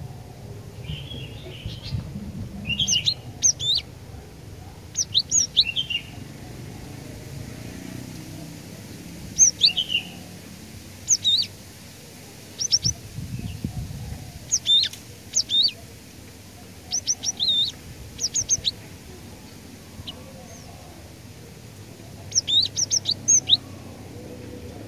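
Cinereous tit (glatik batu) singing: short phrases of sharp, high whistled notes, each phrase a quick cluster of three to five notes, repeated every one to three seconds over a low background rumble.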